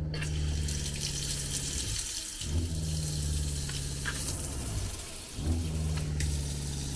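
Water running from a faucet into a stainless steel sink. Under it, the RV's water pump hums in three runs of about two and a half seconds each, with short pauses between: the pump is cycling to keep up the flow.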